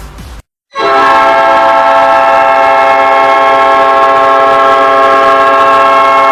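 Ice hockey arena goal horn: a loud, multi-tone air horn chord that starts abruptly just under a second in and is held steadily without a break.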